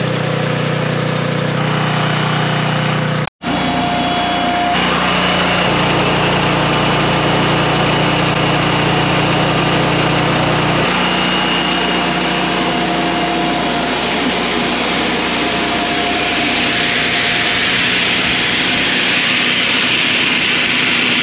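Engine running steadily. The sound drops out for an instant about three seconds in, and a hiss grows louder near the end.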